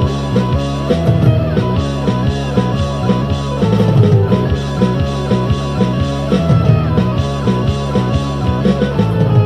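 Rock music from drum, bass and guitar apps played together with a real instrument: a steady rock beat under sustained bass and guitar notes.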